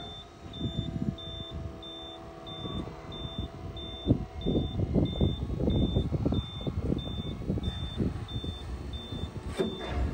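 Kobashi TX320 Cyber Harrow folding its wing: a high warning beeper sounds short even beeps about twice a second as the wing rises, over mechanical clattering and knocking that gets louder from about four seconds in.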